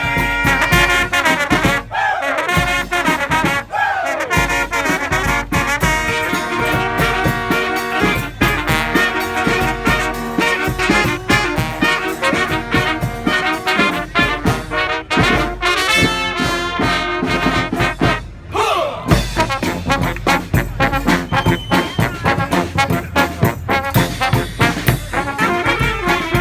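A street brass band of trumpets and trombones plays a fast Balkan kopanitsa dance tune live. The horns make a couple of sliding pitch swoops, once a few seconds in and again about two-thirds of the way through.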